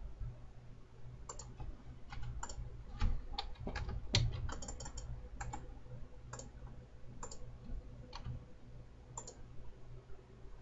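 Computer mouse and keyboard clicking irregularly, with a quick run of several clicks near the middle, over a low steady hum.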